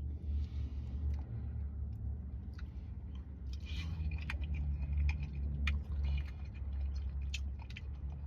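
A person chewing a mouthful of cooked greens close to the microphone, with small wet clicks and smacks, over a steady low hum.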